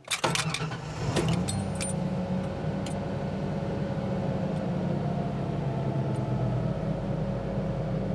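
Ford gasoline engine starting: it catches almost as soon as the key is turned, with a few clicks in the first couple of seconds, then settles into a steady idle. It fires at once on a freshly primed fuel rail and new fuel filter.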